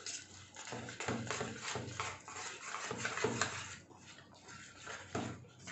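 Wire whisk beating pakora batter in a steel pan: quick strokes, about three a second, that die down about four seconds in, with a few more near the end.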